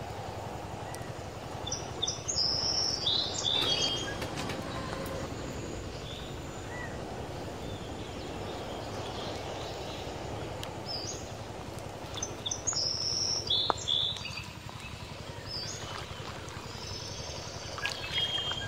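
A bird calling in two bursts of quick, high chirps, one about two seconds in and another around the eleven-second mark, over steady outdoor background noise.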